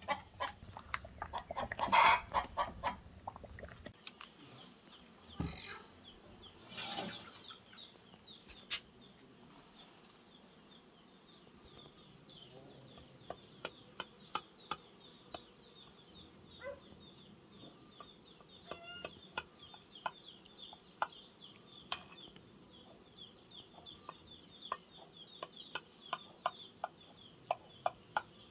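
Chickens clucking loudly in the first few seconds. After that comes a long stretch of sharp light clicks, at about two a second, over a faint steady high chirring.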